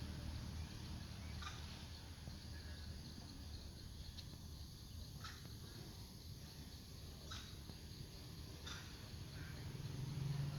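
Four or five short, high-pitched animal chirps or squeaks, spaced a second or more apart, over a low steady background rumble.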